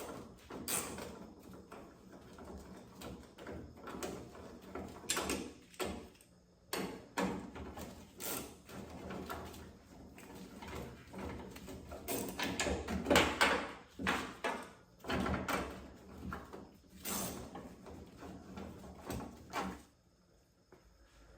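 Hands handling metal hardware and parts: irregular clunks, rattles and scrapes, loudest in a cluster of knocks a little past halfway, then quiet just before the end.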